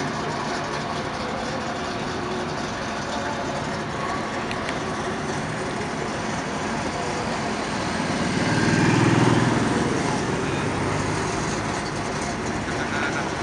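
Vehicle engines idling and traffic moving through an intersection. About eight seconds in, a motorcycle's engine grows louder with a low pulsing note as it rides past, then fades back into the traffic.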